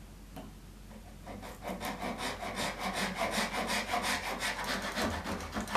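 Hand saw cutting through a wooden Door Gap Fix strip in quick, even back-and-forth strokes, starting about a second and a half in. A single sharp knock at the end.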